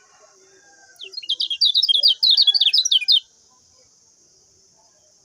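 Kecial kuning (a white-eye) singing one rapid, chattering burst of many quick high notes, lasting about two seconds and starting about a second in, over a faint steady high hiss.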